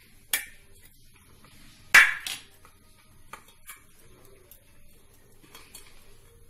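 Kitchen utensils knocking against a tiffin box while ingredients go in: a sharp knock about a third of a second in, the loudest clatter, two knocks close together, about two seconds in, then several lighter taps.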